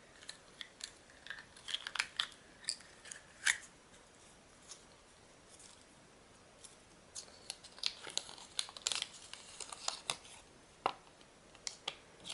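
Small clicks, crinkles and tearing as the Kinder Surprise toy's little plastic and paper wrapping is handled and torn open, with a few seconds' lull in the middle.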